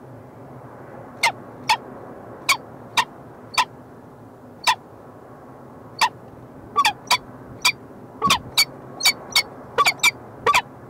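Peregrine falcons calling on the nest ledge: about twenty short, sharp notes, each falling slightly in pitch. They come a few at a time at first, then faster and in pairs over the last few seconds, over a steady low background hum.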